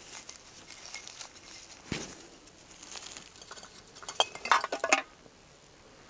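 Glass bottles clinking and knocking together as they are handled and set down, with a dull knock about two seconds in and a quick run of ringing clinks about four seconds in.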